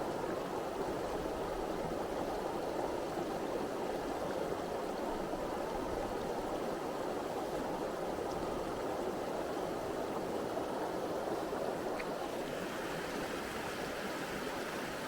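Small mountain stream running over rocks, a steady rushing babble.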